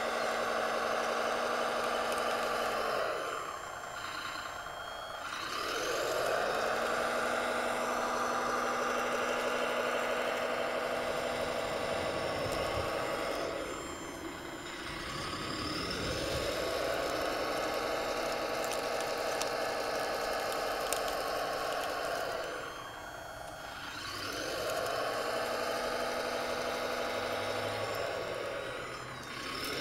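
Radio-controlled CAT 963B model track loader's drive running with a steady whine while it works dirt. Three times the pitch sinks and the sound dips as the machine stops and changes direction, then climbs back up as it moves off again.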